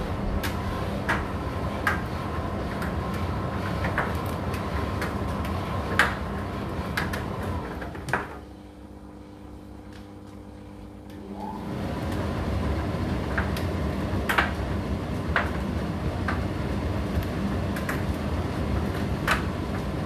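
Indesit IDC8T3 condenser tumble dryer running, clothes tumbling in the drum with sharp knocks every second or two. A little after the middle the drum stops with a knock, leaving only a faint hum for about three seconds, then starts turning again.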